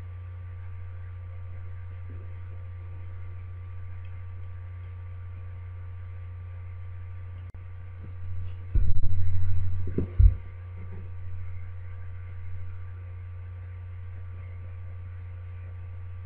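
Steady electrical hum with faint steady higher tones above it. About nine seconds in, a dull low rumble lasts about a second and a half, then a second short one follows; these are the loudest sounds.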